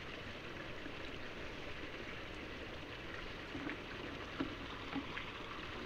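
Water from an inlet pipe falling steadily into a small concrete pond, a continuous splashing with a few faint ticks near the end.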